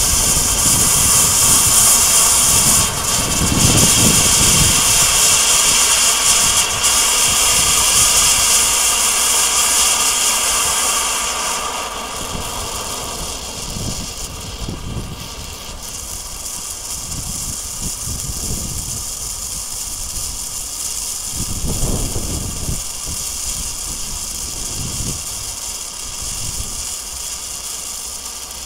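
Hand-held pyrotechnic blue torch burning with a steady, loud hiss, which eases off about twelve seconds in. A few low rumbles sit underneath.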